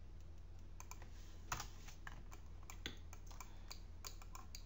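Faint, irregular clicks of a computer mouse and keyboard, several a second, the sharpest about one and a half seconds in, over a steady low hum.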